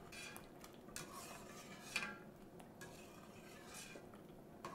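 Faint scraping and clinking of a long metal slotted spoon stirring penne in a stainless steel pot of boiling water, with a sharper clink about two seconds in.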